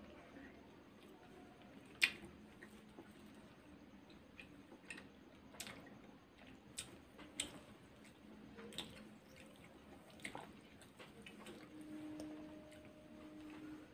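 Quiet eating sounds: soft chewing of a dessert and a metal spoon clicking against a ceramic saucer as it scoops, in scattered sharp clicks, the loudest about two seconds in.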